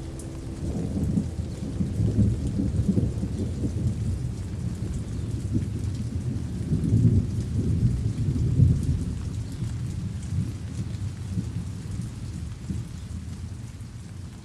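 Steady rain with a long roll of thunder that rumbles in about a second in, swells twice and slowly dies away.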